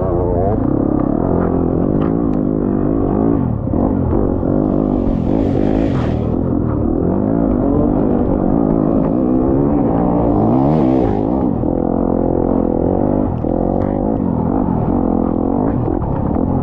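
Off-road racing engine heard up close, its pitch rising and falling without a break as the throttle is worked, with two short bursts of hiss about five and eleven seconds in.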